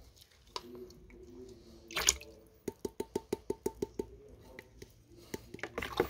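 Sulfur and water mixture being stirred and poured in a plastic bucket: faint sloshing and light plastic knocks, with a short splash about two seconds in. Near the middle comes a rapid, even run of about eight ticks a second.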